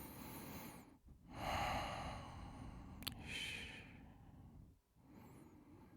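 A man breathing heavily close to the microphone: one breath ends about a second in, then a longer, louder breath follows, with a small mouth click partway through.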